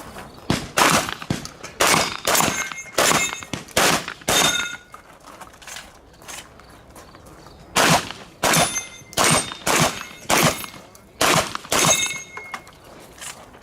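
Rapid shotgun fire during a practical-shooting stage. There are two strings of about eight shots, each roughly half a second apart, with a pause of about three seconds between the strings.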